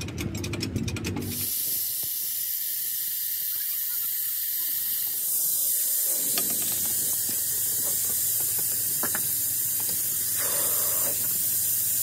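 Compressed air hissing steadily at a road roller tyre, louder from about five seconds in. It is preceded in the first second by a burst of rapid mechanical clicking.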